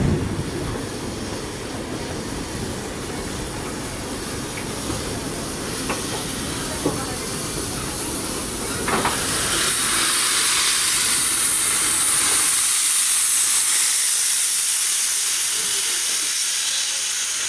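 Steam locomotive rolling slowly by with a low rumble and a few sharp clicks from the wheels. About halfway through, a loud steady hiss of steam takes over, venting from the cylinder drain cocks of the DB class 01 express steam locomotive 01 066.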